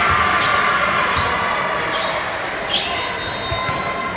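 Echoing sports-hall crowd chatter, with a volleyball bouncing sharply on the hardwood court four times, about one bounce a second, the last the loudest.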